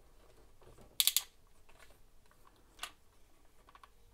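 Plastic parts of a transforming robot figure clicking as its arm is folded in: a quick cluster of three sharp clicks about a second in, and one more click near three seconds.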